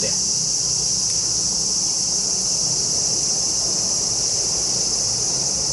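Steady, high-pitched insect chorus, even and unbroken.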